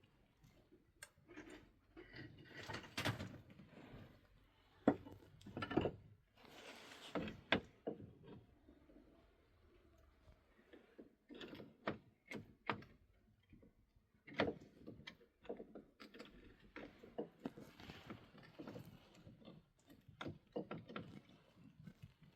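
Irregular knocks, clicks and rustles of objects being handled, a few of them sharper thumps.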